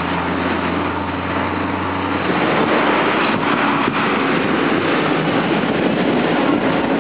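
Jet engines of an Airbus A320 taxiing on the runway: a steady broad roar that grows a little louder after about two seconds, when a low hum under it stops.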